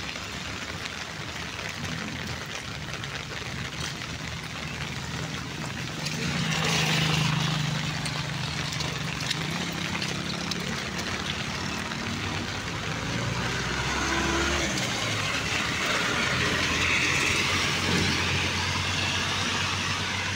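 Road traffic: vehicle engines running and cars passing, with louder passes about six seconds in and again around seventeen seconds.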